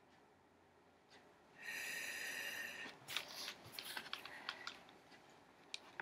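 A page of a picture book being turned: a brief rush of paper sliding, then the page crackling and clicking as it settles.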